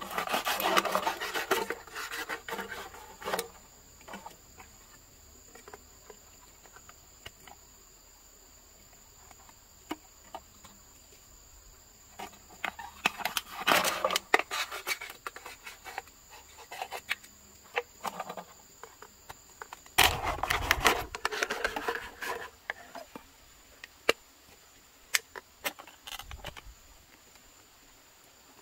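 A knife cutting and scraping through thin plastic water bottles in three bursts of crackling, with scattered clicks between. Insects call steadily throughout.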